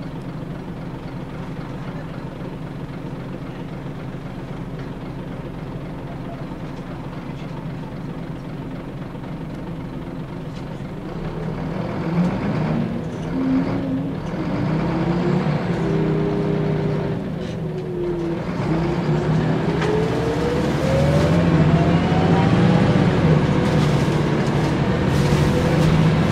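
Scania DSC9 diesel engine of a Scania L94UB bus, heard from inside the passenger saloon. It runs steadily at first, then the revs rise from about twelve seconds in. About eighteen seconds in the automatic gearbox kicks down, and the engine note climbs steadily and grows louder.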